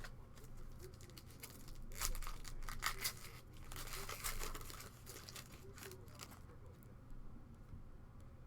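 A foil trading-card pack wrapper being torn open and crinkled, loudest in a burst about two to three seconds in and fading out by about six seconds.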